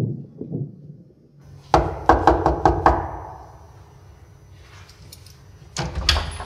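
Knuckles knocking on a wooden apartment door: a quick run of about six raps about two seconds in, then two more sharp sounds near the end.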